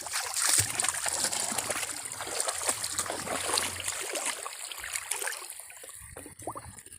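Pond water splashing and trickling, busiest over the first few seconds and then tapering off.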